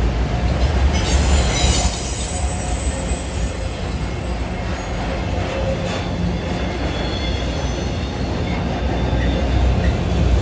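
Freight train of enclosed autorack cars rolling past: a steady low rumble of steel wheels on rail, with a high wheel squeal about a second in and fainter squeals later.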